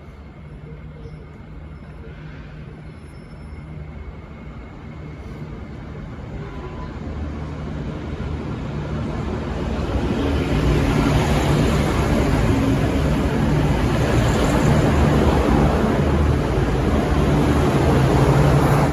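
V/Line VLocity diesel multiple unit running through the station, its diesel engines and wheels on the rails growing steadily louder as it comes closer, then cutting off suddenly.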